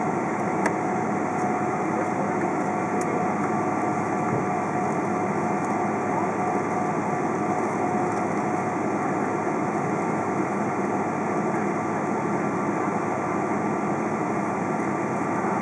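Cabin noise inside a Boeing 777-200 taxiing: a steady rush with the steady whine of its General Electric GE90 turbofans at low taxi power, and a light click about a second in.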